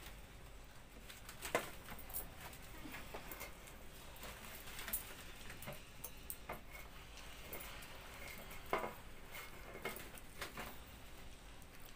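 Close-miked eating by hand: chewing and mouth smacks while fingers gather rice on a steel plate, with scattered soft clicks and scrapes of fingers on the metal. The sharpest clicks come about a second and a half in and near nine seconds.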